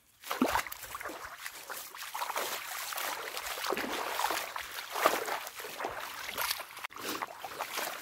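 Shallow muddy stream of rainwater runoff flowing, a steady rushing and trickling of water over sand and through grass, starting suddenly.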